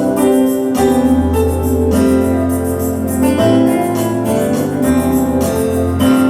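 Keyboard music: sustained organ-like chords over a bass note that changes every second or so.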